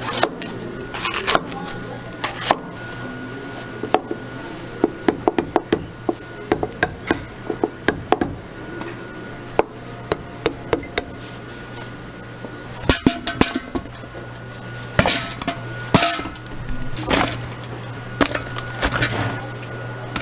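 Knife cutting fruit on a plastic cutting board: irregular sharp knocks as the blade strikes the board, with a quick run of cuts about five seconds in, over a steady low hum.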